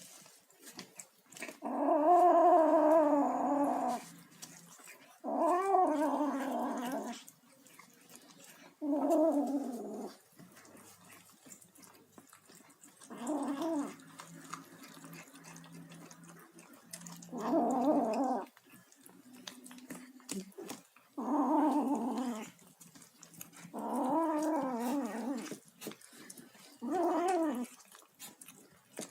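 A kitten making eight drawn-out, wavering calls while it eats, each lasting one to two seconds, with short quiet gaps between them.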